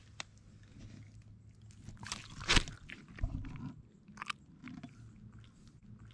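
Handling noise from a channel catfish being held on a wet, algae-covered rock at the water's edge: scattered clicks, scrapes and wet crunching, with one sharp knock about two and a half seconds in.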